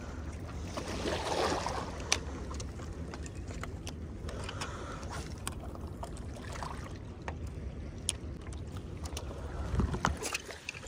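Steady low rumble of wind and water, with scattered light clicks.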